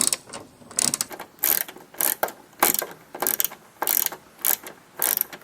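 A ratcheting 10mm socket wrench tightening a nut with quick back-and-forth swings. Each return stroke gives a short burst of pawl clicks, about two bursts a second.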